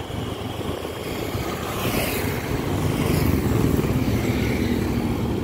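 Road traffic noise while moving through city streets: a steady rumble of vehicle engines and tyres, growing somewhat louder partway through.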